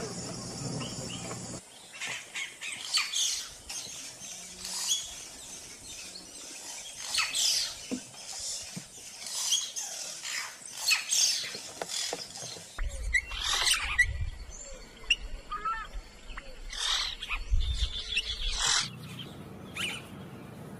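Yellow-rumped cacique (xexéu) singing: a varied run of short whistles, chirps and quick sweeping notes. A low rumble runs beneath it for several seconds in the second half.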